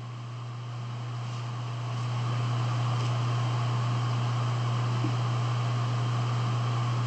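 Steady low hum with an even hiss behind it, growing louder over the first two seconds and then holding level: background room noise of the kind a fan or ventilation makes.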